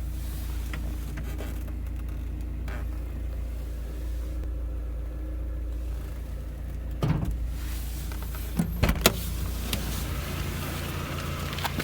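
Mazda Miata's four-cylinder engine running at idle with a ticking noise, briefly revved about seven and nine seconds in.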